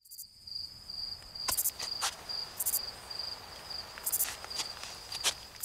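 Insects chirping in a steady, pulsing high-pitched trill, with a few sharp clicks scattered through it.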